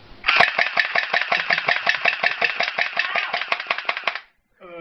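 Airsoft gun firing on full auto: a rapid, even rattle of over ten shots a second lasting nearly four seconds, then stopping abruptly.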